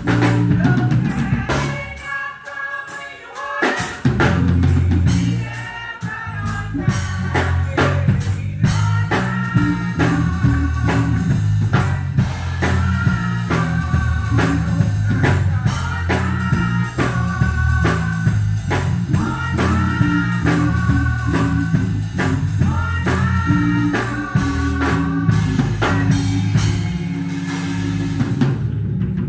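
Gospel song performed live by a church singing ensemble with a band: voices over a steady drum-kit beat and bass line, with cymbals washing near the end.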